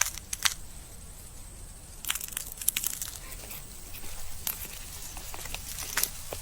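Big-jawed grass-cutting ants snipping through grass blades: irregular crisp clicks and crunches, a few at a time, over a low steady background.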